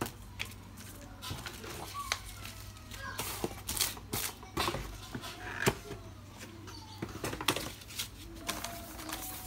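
Cardboard packaging and plastic-bagged accessories being handled and lifted out of a box: irregular rustling, light scrapes and small knocks.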